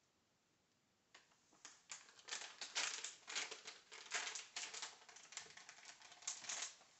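Plastic spice packet crinkling and rustling in the hands, in quick irregular crackles that begin about a second in.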